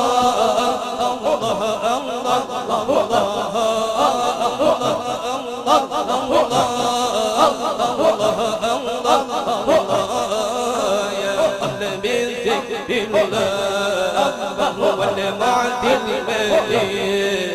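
Men's voices chanting an Islamic devotional nasyid together into microphones, a continuous melodic chant with a lead voice.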